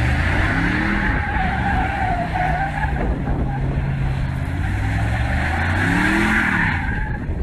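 Chevrolet Tahoe's V8 engine revving under throttle while drifting, its pitch rising and falling twice, about half a second in and again about six seconds in. The tyres skid steadily throughout.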